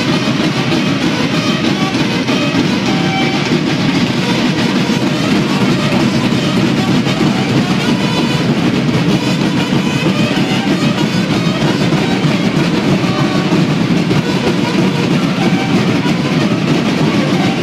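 A school banda de guerra of children's snare drums playing together in a loud, continuous drum cadence.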